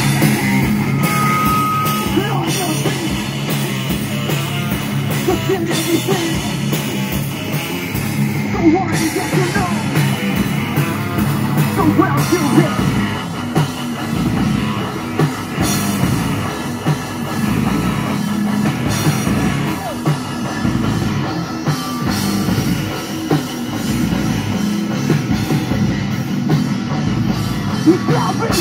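Live metal band playing: electric guitars and a drum kit through the stage PA, loud and continuous.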